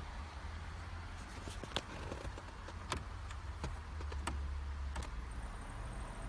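A handful of sharp, separate clicks from a Holden VY Commodore's dashboard climate control as it is switched through its vent settings and the air-con flaps respond, over a low steady hum. A faint high pulsing tone comes in near the end.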